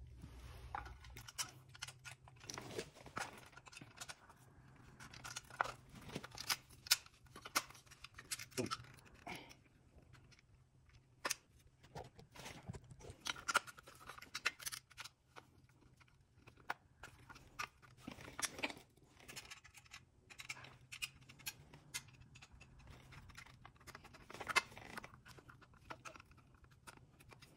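A headlight and a stamped chrome headlight bezel being handled and screwed together with a screwdriver: scattered, irregular small clicks, taps and scrapes of metal parts and screws. The bezel's screw tabs are really tight.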